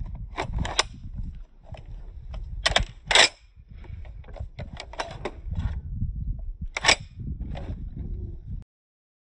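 Sharp metallic clicks and clacks from a scoped Springfield M1A rifle being handled at the receiver, over a low rumble. The loudest clack comes about three seconds in.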